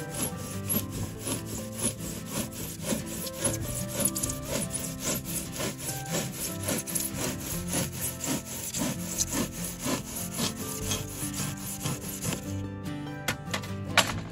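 Hand sawing in quick, even back-and-forth strokes, a few a second, stopping a little before the end, followed by a sharp click.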